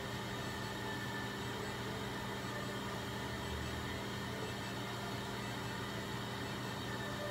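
Steady machine hum and whir from running equipment, level throughout.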